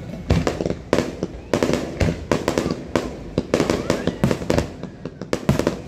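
Aerial fireworks shells bursting in quick succession: a dense, irregular string of sharp bangs, several a second.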